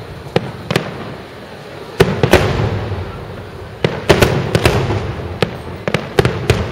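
Aerial fireworks bursting overhead: a dozen or so sharp bangs, some spaced apart and some in quick clusters about two and four seconds in, each trailing an echo.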